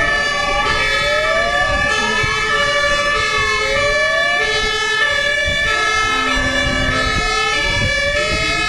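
Fire engine sirens sounding together, overlapping patterns of rising whoops repeating about once a second and alternating two-note tones, over the engine and road noise of the approaching trucks.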